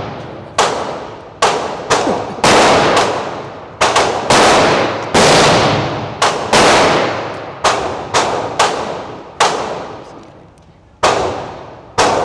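Gunshots in an indoor range, about fifteen at an uneven pace, each with a long echoing tail. A pause of about a second and a half comes near the end before two final shots.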